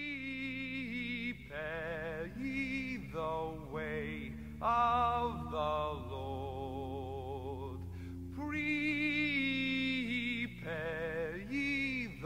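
A voice singing slow, long-held notes with a wide vibrato, over a steady, sustained low accompaniment.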